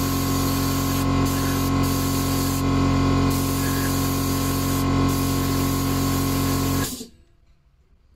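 Airbrush spraying paint, a steady hiss with a steady hum under it, cutting off suddenly about seven seconds in.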